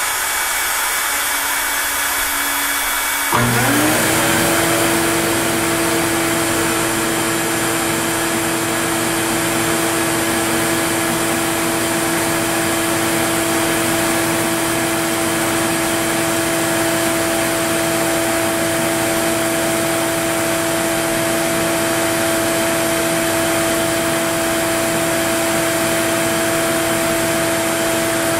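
A dust-collection vacuum runs steadily. About three seconds in, the CNC's router spindle switches on and spins up to a steady whine, running at speed before it starts to cut.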